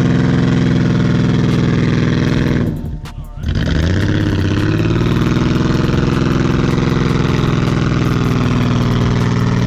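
Off-road vehicle engine revving hard under load, with scattered clicks over it. A little under three seconds in the revs drop away for a moment, then climb back and hold high.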